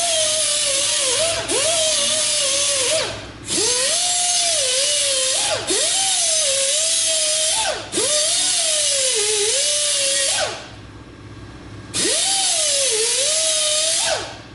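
Die grinder with a 50-grit Roloc disc grinding the cutting edge of a steel lawnmower mulching blade, sharpening it: a high whine that sags in pitch each time the disc bites the metal. It runs in several passes, with a brief break near three seconds in and a pause of about a second and a half in the second half, and it stops near the end.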